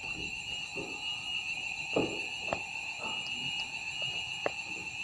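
Fire alarm sounding a steady, continuous high-pitched tone, set off during a test of the fire detection and alarm system. A few short knocks sound over it.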